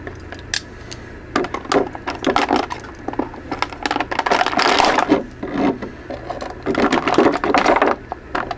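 Clear plastic packaging tray crinkling and clicking in irregular bursts as it is handled and the plastic ties holding the figures in it are cut.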